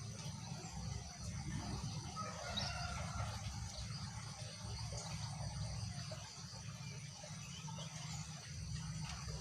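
Steady high-pitched insect chorus, crickets, over a low continuous rumble, with a faint short bird call about two and a half seconds in.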